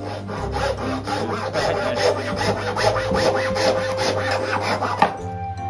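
Japanese hand saw cutting through a small wooden block in quick, even strokes. The sawing stops about five seconds in with a single sharp knock.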